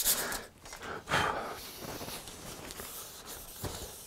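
Sandpaper rubbed by hand along the side of a cast-iron hand plane body: quick strokes that stop about half a second in. Fainter rubbing and handling follow, with one louder swish about a second in.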